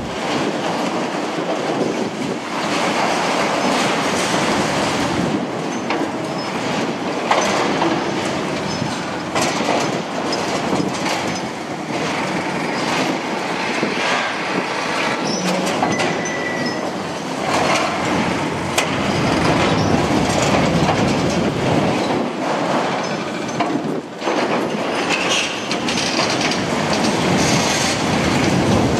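Liebherr 954 demolition excavator's attachment tearing into a steel roof framework: continuous crunching, scraping and screeching of metal and falling debris, with a brief high squeal about halfway through.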